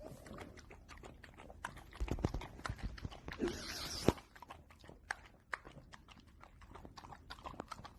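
Dog eating a broken raw egg: scattered wet clicks and smacks, with a louder rustling burst about three and a half seconds in and a sharp click just after.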